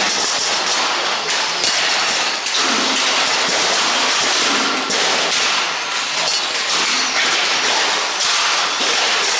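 Radio-controlled stock cars running laps on a banked oval: a steady hiss of small motors and tyres, with occasional knocks.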